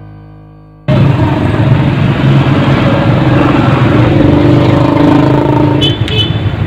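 A music cue rings out and fades, then cuts abruptly to loud outdoor street ambience: the steady noise of traffic with a motor vehicle engine running. A few brief high chirps come near the end.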